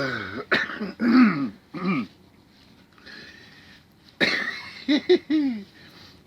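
A man coughing and groaning in two bouts of short outbursts, choking on the burn of a mouthful of wasabi and hot chili sauce.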